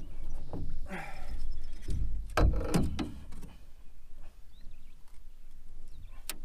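Handling a freshly landed fish and landing net in a small boat: a few sharp knocks and clatters, the loudest about two and a half seconds in and again near the end, with a short grunt-like vocal sound about a second in.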